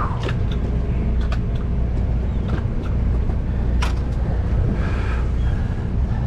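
Sportfishing boat's engine running with a steady low drone, with a few sharp clicks and knocks scattered over it.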